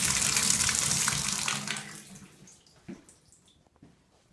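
Water from the tub spout of a freshly rebuilt Delta Scald Guard faucet pouring into the bathtub and down the drain as the repair is tested. The flow stops about two seconds in, and a single knock follows about a second later.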